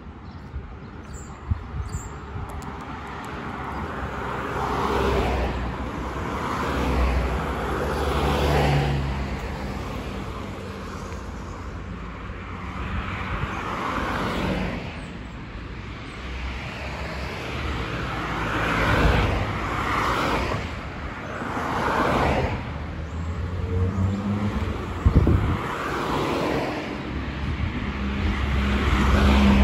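Road traffic: a string of cars passing one after another, each bringing a swell of tyre and engine noise that rises and fades, over a steady low rumble.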